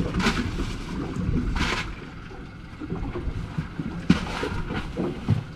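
Steady low rumble of wind on the microphone aboard a boat on open water, broken by a few short hissing bursts and one sharp knock about four seconds in.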